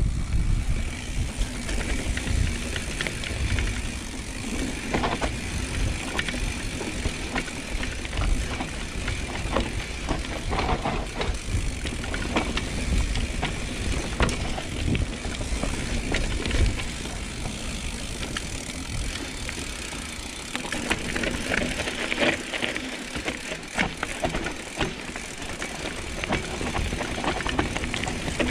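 Mountain bike rolling down a dirt trail: a steady low rumble with frequent irregular clicks and rattles as the bike goes over bumps.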